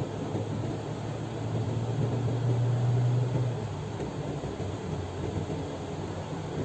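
Vehicle driving along a road: steady engine hum and road noise, the engine hum swelling briefly about two seconds in and easing off again after about three and a half seconds.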